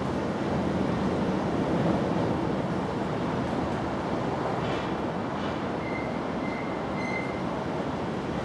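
Steady rushing background noise with no distinct events, the kind heard from wind or distant traffic outdoors. Faint thin high chirps come in briefly around the middle and again later.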